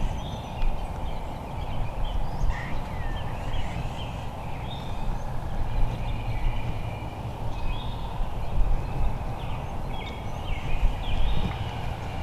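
Wild turkeys calling, short calls coming here and there, over a steady low rumble.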